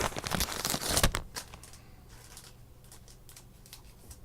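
Crinkling of plastic trading-card packaging being handled for about the first second, then a few faint handling ticks.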